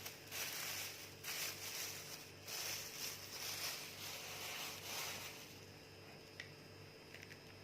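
Packaging being handled during unboxing: uneven bursts of rustling and rubbing for about five seconds, then quieter, with a couple of faint clicks near the end.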